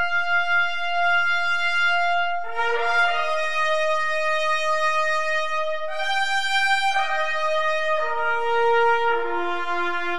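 Brass ensemble, led by trumpets, playing a slow fanfare of long held chords that shift to new chords several times.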